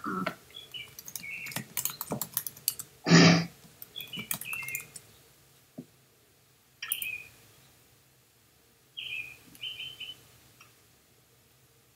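Computer keyboard typing: scattered key clicks, densest in the first half. Several short high chirping blips come in small groups, and there is one short loud burst about three seconds in.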